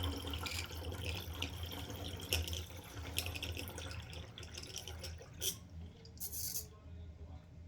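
Water running and splashing in a bathtub around a newly repaired drain, with scattered drips and splashes, tapering off and stopping near the end.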